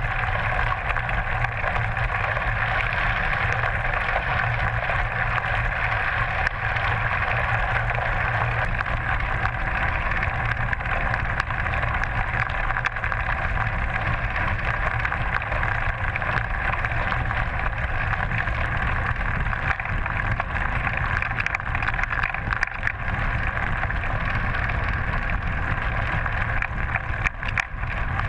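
Steady rush of wind and riding rumble picked up by a GoPro in its case, mounted on a bicycle's stem top cap while the bike is ridden.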